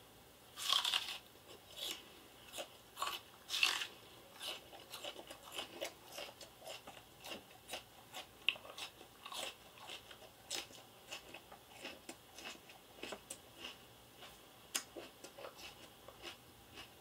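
Raw onion being bitten and chewed: many short, irregular crisp sounds, the loudest in the first four seconds.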